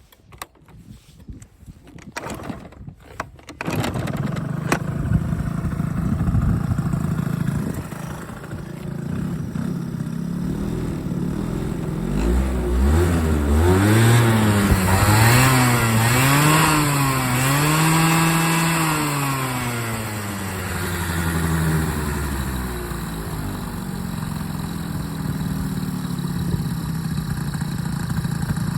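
A motorcycle engine starts after a few faint knocks, idles, is revved up and down several times, then settles back to a steady idle. The seller reports an abnormal noise from this engine.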